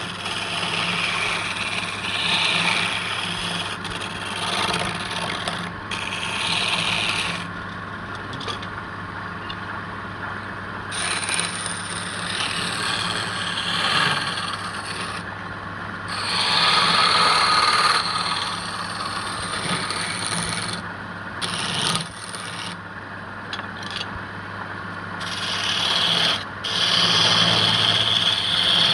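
Wood lathe running with a steady motor hum, under a scraping, rubbing noise from the spinning wood being worked that swells and fades.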